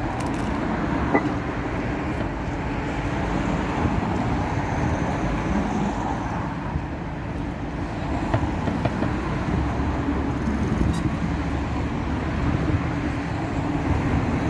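Steady hum of street traffic, with no single event standing out.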